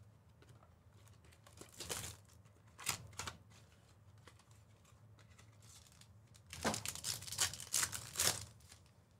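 Trading-card pack wrappers being torn open and crinkled by hand. There are two short bursts of tearing, then a longer run of tearing and crinkling near the end.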